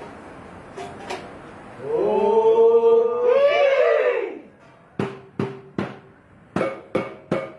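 A man's long chanted call, held and then wavering up and down, followed about five seconds in by a Kadazandusun gong ensemble and drum starting up: sparse ringing gong strikes that quicken into a steady beat.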